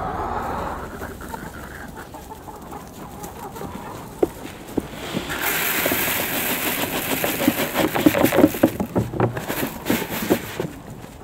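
Chicken feed pouring from a bucket into a red plastic gravity feeder: a dense rattling hiss of grain that starts about halfway through, lasts some five seconds, and stops shortly before the end, with a few knocks against the plastic. Hens cluck around it.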